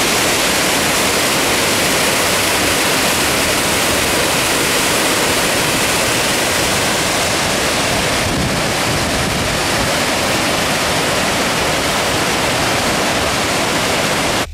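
Rushing creek water, loud and steady, with no other sound over it; it cuts off suddenly at the end.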